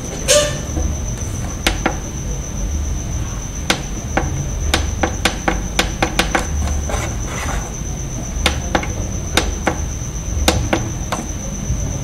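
Irregular sharp clicks and taps, about fifteen of them, with a steady high-pitched whine and a low hum that swells and fades every second or so underneath.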